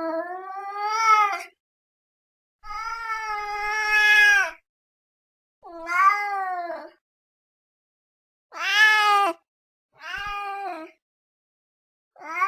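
Domestic cat meowing: six separate drawn-out meows, each about one to two seconds long and rising then falling in pitch, with clean silent gaps between them. The last meow starts near the end.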